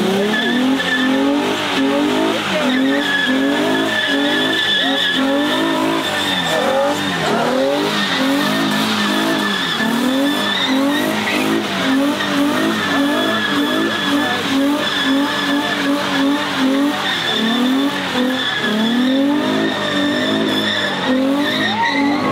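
A car spinning its tyres under power: the engine revs in repeated surges, its pitch rising and falling about once a second, over a continuous high tyre squeal.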